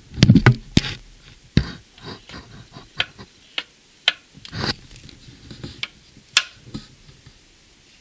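Metal parts of an old heavy machine's mechanism being handled and moved by hand: a dull thump right at the start, then irregular clicks and knocks of metal.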